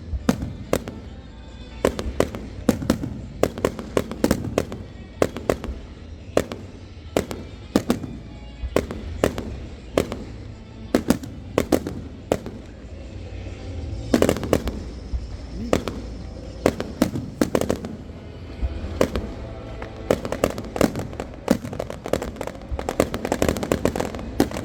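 Fireworks going off in quick, irregular succession: many sharp bangs, often several a second, with a louder burst of them about halfway through.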